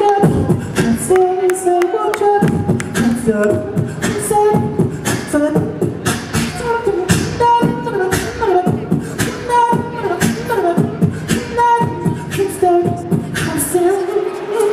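Live beatboxing into a handheld microphone: a fast rhythm of kick- and snare-like mouth hits with crisp hi-hat clicks, while a melody of held vocal notes steps up and down in pitch over the beat.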